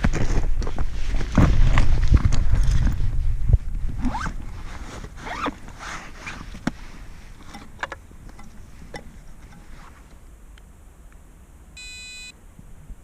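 Rustling, scraping and clicking handling noise over a heavy wind-like rumble, which drops away after about three and a half seconds, leaving scattered small clicks and scrapes. Near the end there is one short electronic beep.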